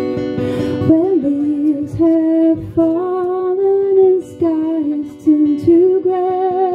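Acoustic guitar strummed under a woman's sung vocal, which comes in about a second in and continues in held, phrased notes with short breaks between lines.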